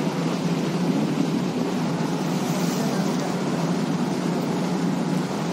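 Steady low drone of a ship's engine, heard on deck over an even hiss of wind and water.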